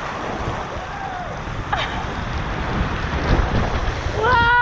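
Wind buffeting the microphone and rushing water during a fast ride down a water slide, growing steadily louder. Near the end a long, held yell starts.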